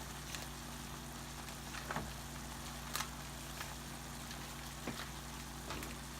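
Chopped roast beef frying in oil in a pan: a steady sizzle with scattered sharp pops, about six in all, the loudest about three seconds in.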